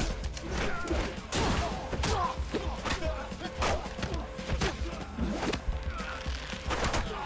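Film fight-scene sound effects: a quick series of whacks and thuds as umbrella blows land, over background music.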